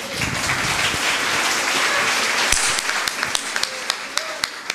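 Audience applauding. The dense clapping thins out to a few separate claps near the end.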